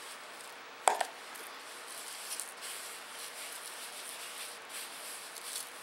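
A plastic bowl is set down on a wooden table with one sharp knock about a second in. After it come the soft, scratchy rustles of plastic-gloved hands rubbing a dry spice rub into a raw beef steak.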